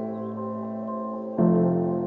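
Soft, slow background piano music: sustained chords, with a new chord struck about one and a half seconds in.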